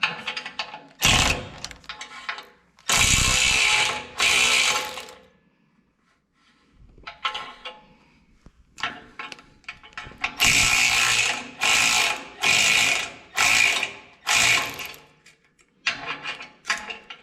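Ratchet wrench clicking in strokes as jam nuts are run along threaded rod: a few long strokes at first, then a quicker run of short strokes in the second half.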